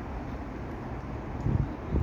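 Wind buffeting the microphone in gusts, louder about a second and a half in, over a steady low rumble.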